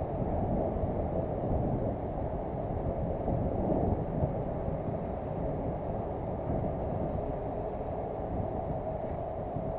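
Steady wind rumble buffeting the microphone of a boat-mounted action camera, a little stronger between about one and four seconds in.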